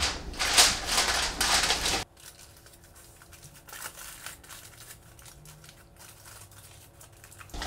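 Aluminum foil crinkling loudly for about two seconds as it is pressed into a pastry-lined pan, then only faint rustling.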